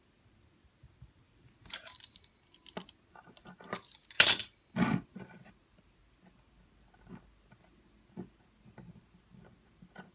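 Handling noises on a kitchen worktop: a run of light clicks and rustles, with two sharper clatters about four and five seconds in.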